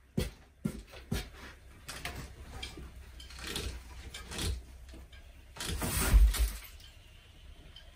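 Old kitchen cupboards being wrenched apart by hand: sharp knocks at first, then scraping and rattling of panels. The loudest part is about a second long, around six seconds in, as a panel is pulled loose.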